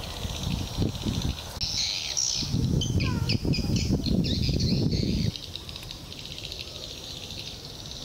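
Birds chirping and calling, with quick chirps and short falling whistles, over a soft insect hum. Under them runs an irregular low rumble that stops abruptly about five seconds in.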